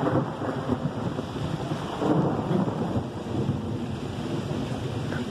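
Thunder rumbling over steady heavy rain falling on the forest canopy overhead, with two swells of rumble, one at the start and one about two seconds in.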